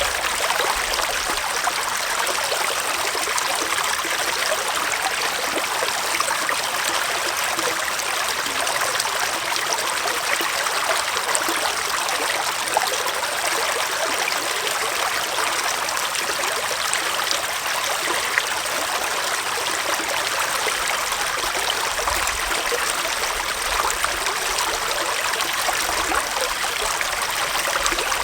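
Small forest stream flowing steadily, with an even rush and trickle of running water.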